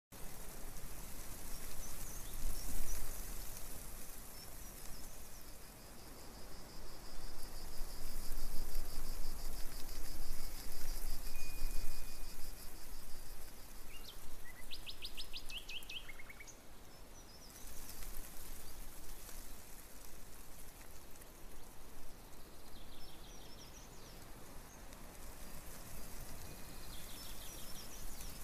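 Outdoor ambience: a steady wash of background noise with birds chirping. A thin high trill runs through the first half, and groups of quick chirps come in the middle and again near the end.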